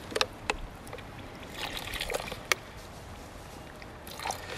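Water pouring from a plastic water bottle into a zip-top bag of plaster of Paris powder, a faint trickle, with a few sharp crinkles and clicks of the plastic bag and bottle.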